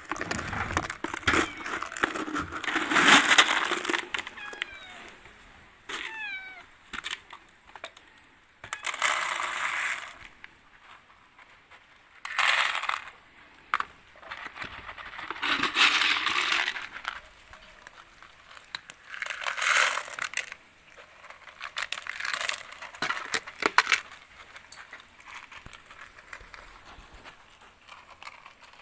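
A cat meowing again and again, in drawn-out calls a few seconds apart, with a few short high chirps in between.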